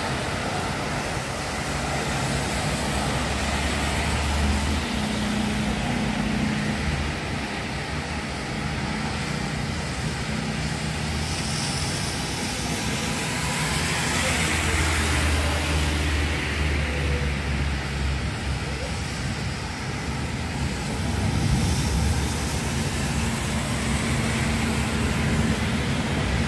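Traffic on rain-wet city streets in a storm: a steady hiss of rain and tyres on wet road. Low rumbles swell and fade a few seconds in and again in the middle.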